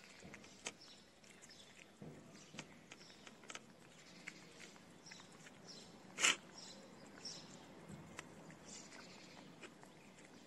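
A calico cat and a kitten eating wet cat food from a ceramic plate: faint, scattered chewing and lapping clicks, with one louder short noisy sound about six seconds in.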